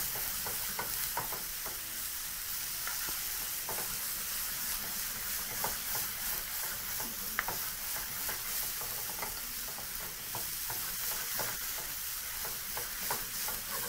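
Tomato and onion masala sizzling in a hot non-stick frying pan while a spatula stirs and scrapes it continuously, with small irregular scrapes and clicks over a steady hiss. The tomatoes are being fried down into a sauce.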